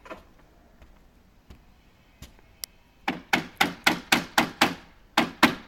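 Fast hammer blows, about four a second, starting about three seconds in, each with a short ring, with a brief break near the end before they resume. A single knock and a couple of light taps come before them.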